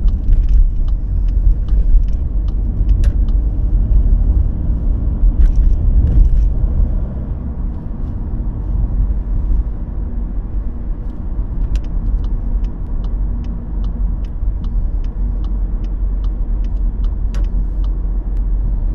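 Car cabin noise while driving at road speed: a steady low rumble from the engine and tyres. Towards the end, a regular light ticking of about three ticks a second runs over it for several seconds.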